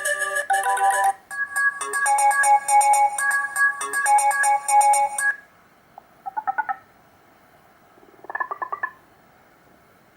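Built-in ringtones of a Black Fox B5 (BMM531A) phone: a bright electronic melody breaks off about a second in, a new tune plays until about five seconds, then two short trilling bursts follow near six and eight seconds.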